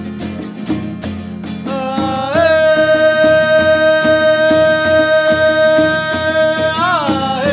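Acoustic guitar strumming in a steady rhythm. About two seconds in, a long held melodic note joins, sliding up into pitch. Near the end it bends and settles a little lower.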